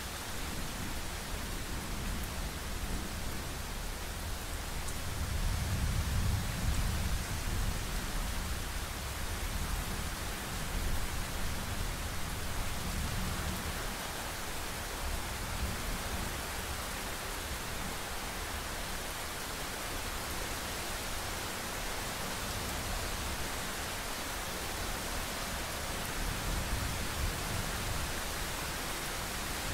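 Thunderstorm: a steady hiss of rain with low rumbles of distant thunder, the strongest swelling about six seconds in.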